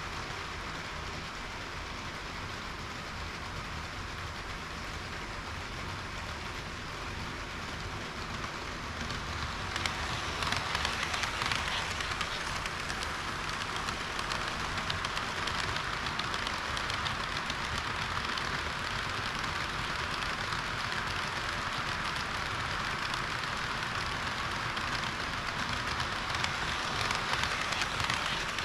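HO-scale model train running along its track: a steady rattling hiss of wheels on rail, growing louder about ten seconds in.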